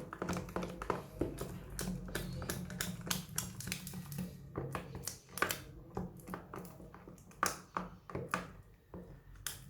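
Slime being squeezed and pressed by hand: a quick, irregular run of clicks and pops that thins out about halfway through.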